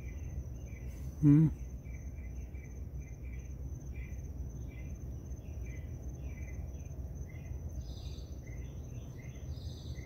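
Crickets chirping in a night chorus: short chirps repeating all the way through, over a continuous high-pitched trill. About a second in, a person's brief low voiced sound is the loudest thing.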